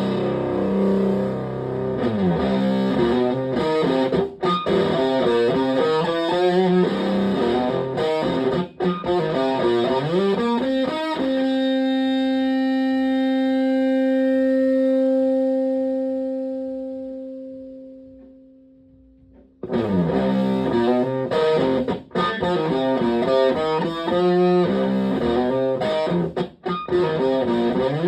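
Stratocaster electric guitar through a Tone Bender MKII-style fuzz pedal into a Fender Twin Reverb-style amp, playing fast fuzzed riffs with quick rising and falling runs. About eleven seconds in, one note is held and rings on for several seconds, fading away, before the fast riffing starts again.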